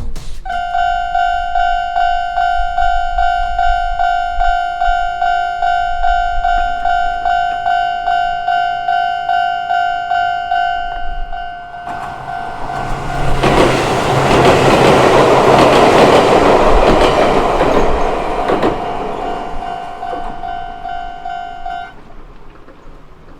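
Japanese level-crossing warning bell ringing at about two strikes a second. A Chichibu Railway train passes through about halfway, with a loud rush of wheels on rails for about six seconds. The bell cuts off near the end.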